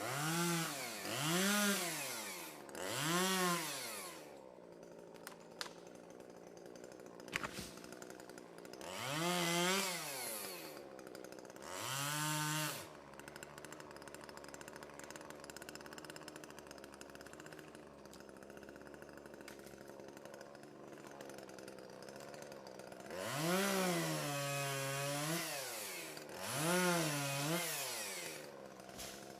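Chainsaw engine revved up and let back down about six times, each rev rising and falling in pitch, with the saw idling in between and a long stretch of idle in the middle.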